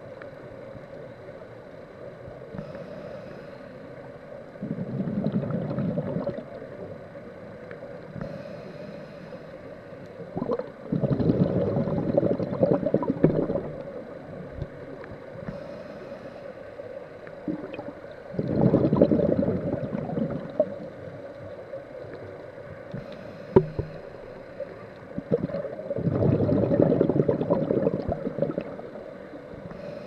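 Scuba regulator breathing underwater: four slow breaths about seven seconds apart, each a short faint hiss of inhaling followed by a longer burst of bubbling exhaled air. A steady faint hum runs underneath.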